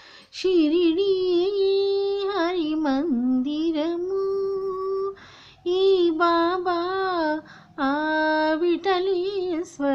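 A solo female voice singing a Telugu devotional song with no other instrument, holding long notes with ornamented turns and stopping twice for breath.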